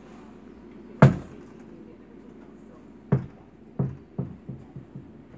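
A loud knock about a second in, another a couple of seconds later, then a run of quieter knocks coming closer and closer together and fading.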